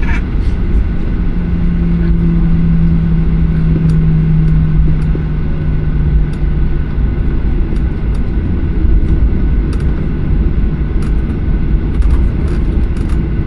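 Steady low rumble of a Boeing 737-800's engines and airflow, heard inside the passenger cabin, with a steady hum that fades out about six seconds in.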